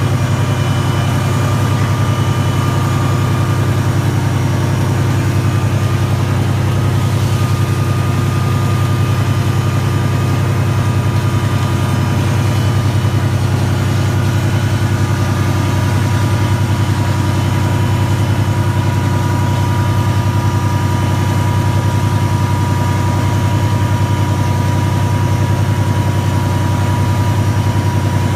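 Engine and fish-pump machinery of a salmon tender running steadily during fish pumping: a loud, even low drone with a faint steady whine on top.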